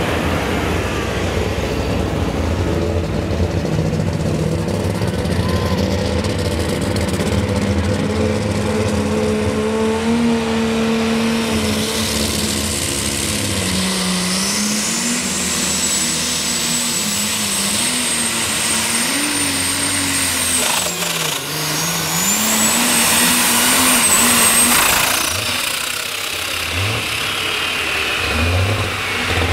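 Turbocharged diesel engine of a super/pro stock pulling tractor running hard under load while pulling the sled, its note rising and falling. A high turbo whistle climbs about halfway through, dips and climbs again, then cuts off as the sound peaks and the throttle comes off. A falling whine is left near the end.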